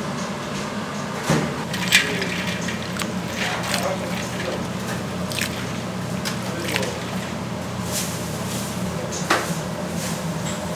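Wet squishing of food being worked by hand, with scattered clicks and knocks, over a steady low machine hum.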